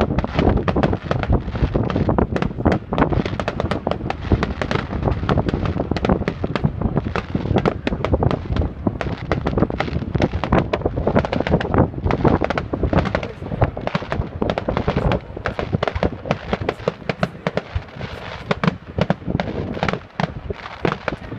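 Fireworks display: a dense, continuous barrage of bangs and crackles, many per second.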